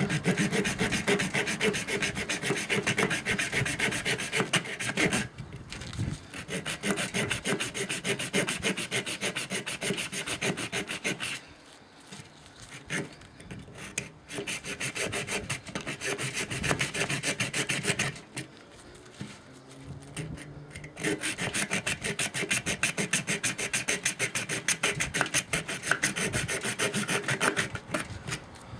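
Leatherman Blast multi-tool saw blade cutting through a coconut shell: rapid back-and-forth rasping strokes in several long runs, broken by short pauses.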